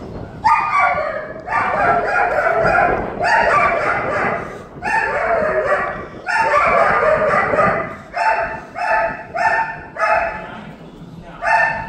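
A series of loud animal calls: five drawn-out calls over a second long each, followed by a run of shorter calls about twice a second near the end.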